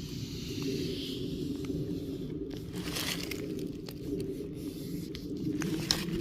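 Scraping and crinkling of hands working over plastic sap-line tubing and fittings, with scattered small clicks, while the line is searched for a vacuum leak.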